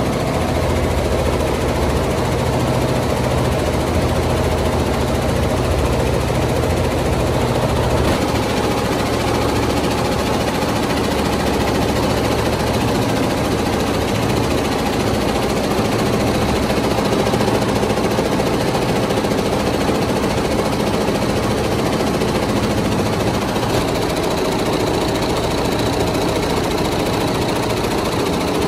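Multi-head computerized embroidery machine running at speed, its needles stitching in a steady, rapid mechanical clatter.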